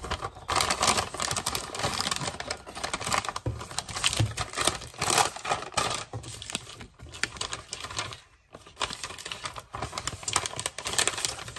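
Crinkly plastic packaging being handled and scrunched by hand: a dense, irregular crackling with a brief lull a little past two-thirds of the way through.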